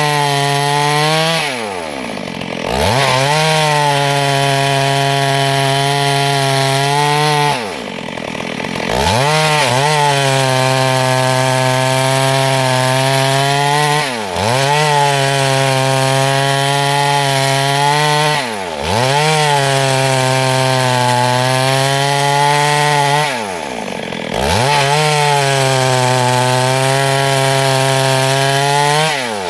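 Chainsaw running at high throttle while ripping wood along a log into planks. Its steady engine note drops sharply and climbs straight back about every five to six seconds as the throttle is let off briefly and opened again.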